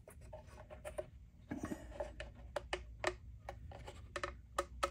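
Small wooden wedges being handled and pressed into place against a semi-hollow bass guitar's body to clamp a freshly glued crack: a string of light, irregular wooden clicks and scrapes.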